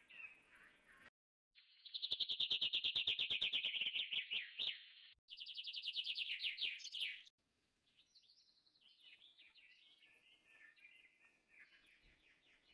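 High-pitched chirping trills: two long runs of rapid pulses, the loudest sound, followed from about halfway on by fainter scattered chirps.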